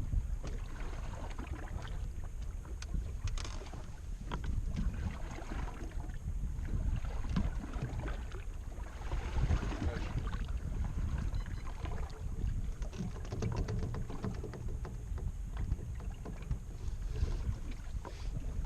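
Wind buffeting the microphone on an open boat, with water splashing and lapping in irregular spatters.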